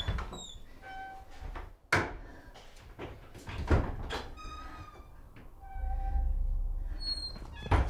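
A wooden door being handled as someone goes out: several sharp knocks and thuds, with short squeaks between them.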